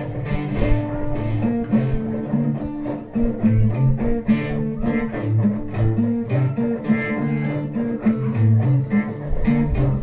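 Instrumental guitar music with no singing: plucked notes over a moving line of low notes.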